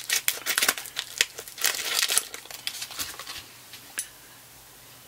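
Plastic vacuum-sealed meat package crinkling as it is snipped open with scissors and handled. It is loudest in the first two seconds and dies away after about three, with one faint click near four seconds.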